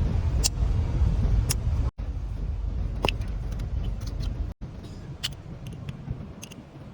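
Low car rumble with a few scattered sharp clicks, broken off briefly twice; the rumble is loudest in the first two seconds and fades down after about four and a half seconds.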